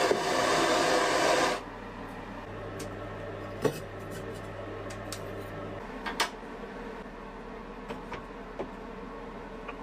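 A loud, steady whirring of a motor-driven workshop tool stops abruptly about a second and a half in. Then come a few light, sharp clicks and taps of hand tools or metal being handled, over a faint hiss.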